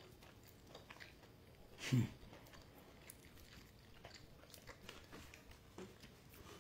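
Faint crackling of peanut shells split between the fingers, with quiet chewing of the peanuts, in scattered small clicks. One louder short sound about two seconds in.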